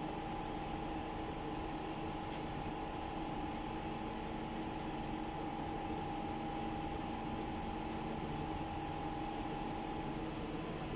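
Steady machine hum with hiss, like a fan or air-conditioning unit running. A few fixed tones sit in it, and the highest fades out near the end.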